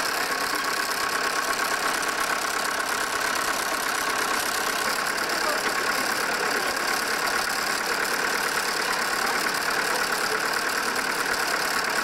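Old wooden threshing machine running steadily: a constant mechanical whirr with a steady high hum through it.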